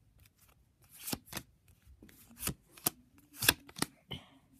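Pokémon trading cards being flipped through by hand, each card going onto the pile with a sharp flick; about six in all, the loudest about three and a half seconds in.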